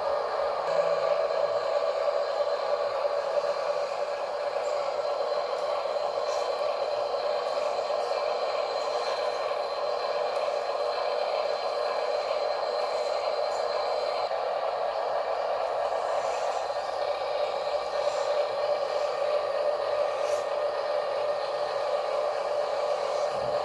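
Small electric motors and gearboxes of RC crawler trucks whirring steadily as the trucks drive, with faint rustling and scraping.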